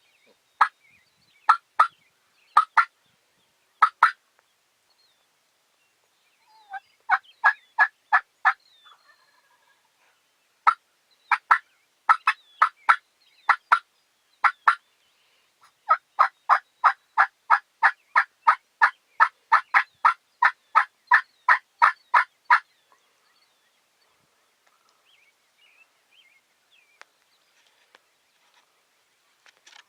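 Wild turkey yelping: runs of short, sharp yelps, the longest run about three a second and lasting some six seconds, the hen-style calling used to bring in a gobbler.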